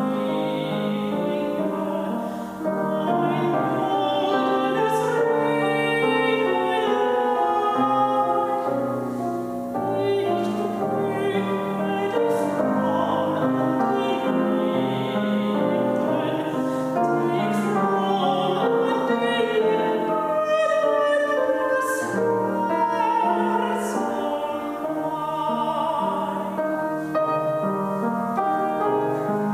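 Mezzo-soprano singing a classical art song with wavering vibrato, accompanied by a grand piano.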